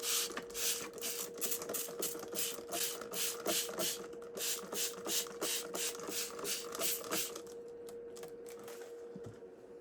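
Repeated scraping strokes, about three or four a second, that die away about seven seconds in, over a steady hum.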